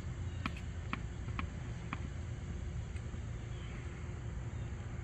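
A tennis ball being bounced on a hard court before a serve: about five faint taps roughly two a second, dying out after two seconds, over a steady low outdoor rumble.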